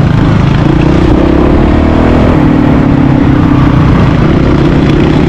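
Honda CRF450RL's single-cylinder engine running steadily under way on a gravel road, its pitch shifting slightly with the throttle.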